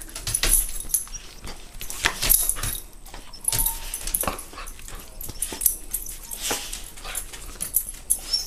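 A dog tugging and mouthing a plush chipmunk toy held in a hand: an irregular run of short scuffles and rustles as it pulls at the toy.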